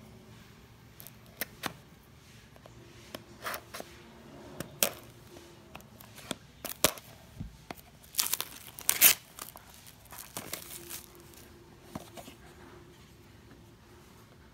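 A knife blade scraping and slitting the seal of a small cardboard box, in scattered short scratches and clicks. About eight seconds in comes a louder stretch of tearing as the seal is peeled off by hand.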